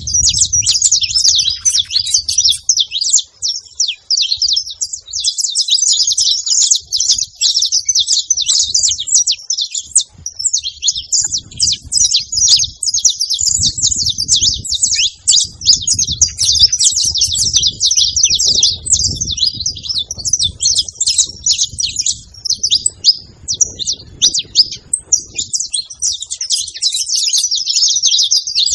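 Saffron finch singing: a fast, nearly continuous run of high chirps and trills, broken only by a couple of brief pauses.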